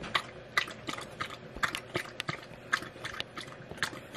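Wirehaired dachshund lapping water from a stainless steel bowl, a steady run of wet laps about three a second.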